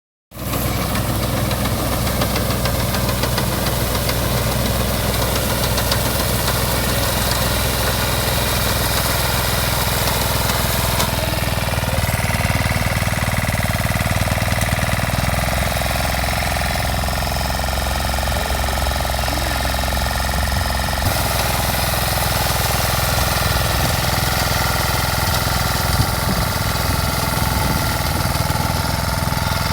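Small engine of a reaper-binder machine running steadily while it cuts wheat.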